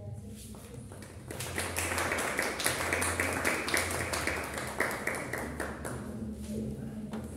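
A small audience clapping in a classroom. The applause starts about a second in, holds for a few seconds and dies away near the end.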